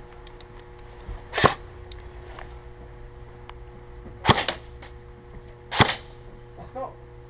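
Airsoft rifle shots: three sharp single cracks, the first about a second and a half in and the last two about a second and a half apart, each a quick double snap.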